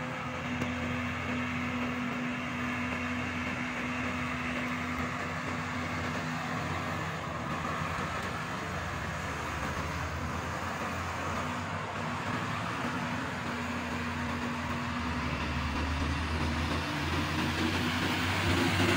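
Loaded Hino FG8J cargo truck's diesel engine running steadily as the truck drives slowly past, mixed with light road traffic; it grows louder near the end as the truck comes close.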